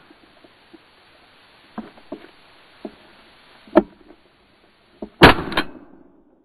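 A shotgun firing once about five seconds in, the loudest sound, sharp and trailing off over about half a second. Before it come a few scattered light knocks and one sharp crack a little before four seconds.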